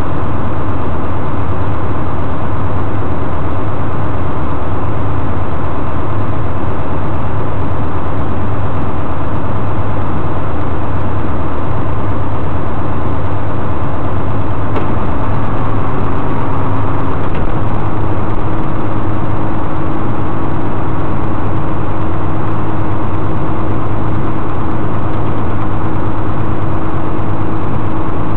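Tilt-tray tow truck's engine running steadily, with a heavy low hum; about halfway through a steady higher hum joins in and the sound gets slightly louder.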